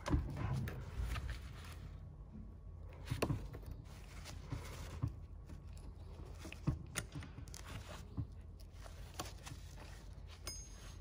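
Scattered faint metallic clicks and taps as a T-handle tool is fitted and worked in the chain sprocket housing of a TRUMPF TPC165 panel cutter, with glove handling noise, loosening it to release the blade.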